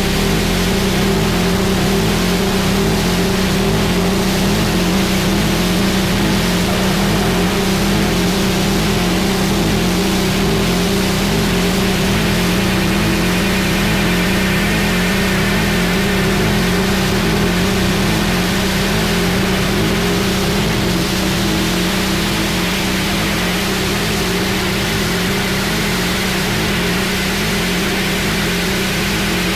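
Noise music: a loud, dense, unbroken wall of distorted noise over a steady low droning hum, barely changing.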